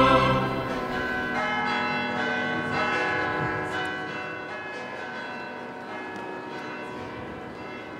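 Church bells ringing, a new strike about every half second over long ringing tones, slowly dying away.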